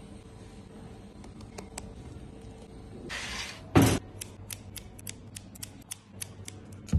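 A single sharp thump, then kitchen scissors snipping a bunch of fresh dill in quick, crisp cuts, about five snips a second, for roughly three seconds.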